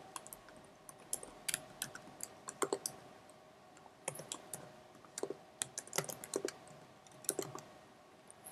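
Typing on a computer keyboard: keys clicking in short, uneven bursts with pauses between them.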